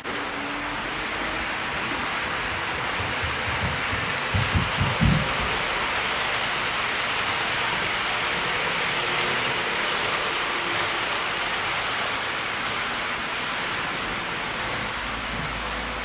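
HO-scale model train of KiHa 58 and KiHa 55 series diesel railcars running along the track, its wheels and motors making a steady rolling hiss that swells as the train passes. A few low thumps come about four to five seconds in.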